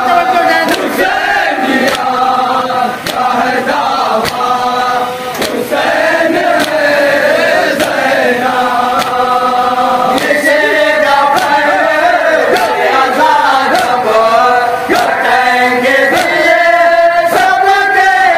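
A group of men chanting a Shia noha, a Muharram mourning lament, in unison with a lead reciter. Rhythmic chest-beating (matam) slaps keep time throughout.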